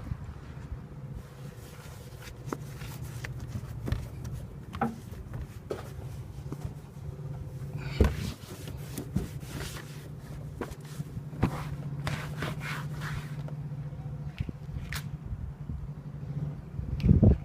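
Steady low hum with scattered clicks and scrapes.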